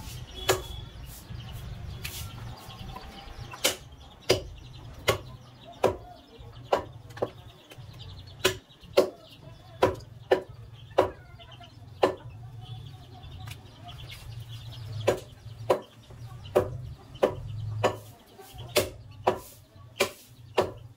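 Butcher's cleaver chopping goat meat on a wooden log chopping block: sharp chops at uneven intervals, about one or two a second.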